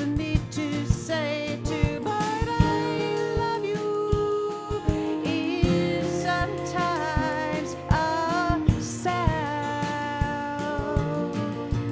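A woman singing with vibrato, accompanied by two acoustic guitars picked and strummed.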